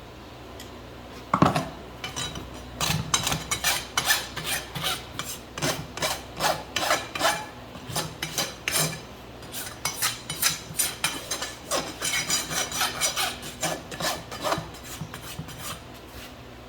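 Farrier's rasp filing a horse's hoof in quick repeated strokes, about two a second, after a sharp knock at the start: the finishing rasp after shoeing.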